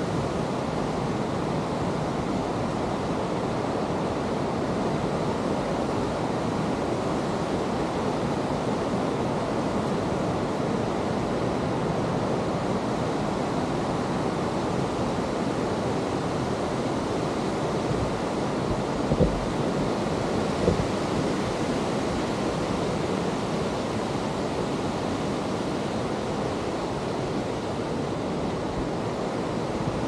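Steady rushing of a whitewater mountain river close by, an even roar with no change. Two brief knocks sound a little past the middle.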